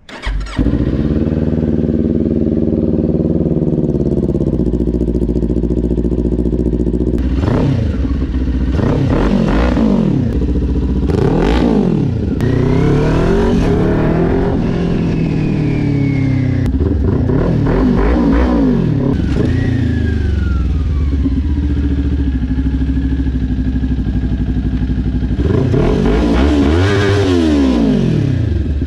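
Kawasaki Ninja 400 parallel-twin engine fires up and idles, then is revved in a series of quick throttle blips. A longer rev comes near the end.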